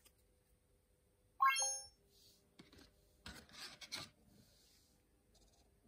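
A Quincy robot's short electronic chime about a second and a half in, then the scratching of its felt-tip marker on paper as its arm writes a letter.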